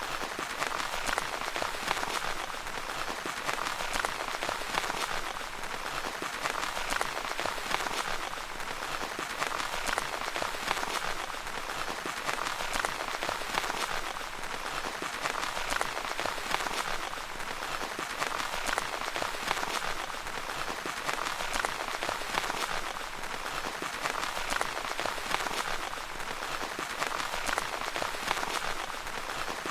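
Steady rain pattering on a tent's fabric: a dense, even patter of many small drop impacts.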